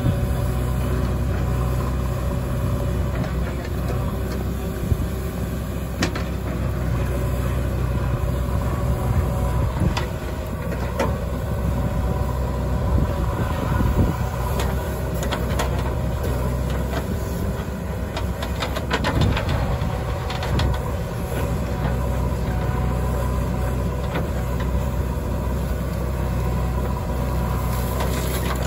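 JCB 3DX backhoe loader's diesel engine running steadily under hydraulic load as the backhoe digs and swings, with scattered sharp metallic clanks and knocks from the bucket and boom. Near the end, loose soil pours from the bucket into the lorry's body.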